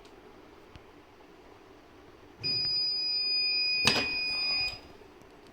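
Heat press timer buzzer sounding one steady high-pitched beep for about two seconds, with a sharp click partway through: the signal that the pressing time is up.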